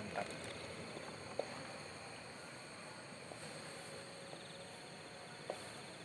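Faint steady insect chirring, with a few soft knocks of a wooden spatula against a metal wok as the food is stirred.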